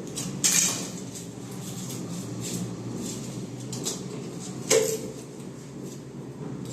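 Hard knocks and clinks of plumbing tools and pipe fittings being handled: a loud sharp strike about half a second in and another, with a short ring, about five seconds in, with fainter clicks between, over a low steady hum.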